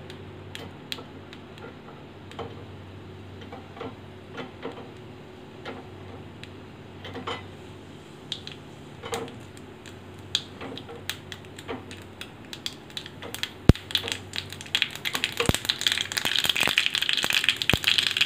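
Mustard seeds popping in hot oil in a small tempering pan. The pops are scattered at first, then build into a dense crackle over the last few seconds as the seeds splutter in full.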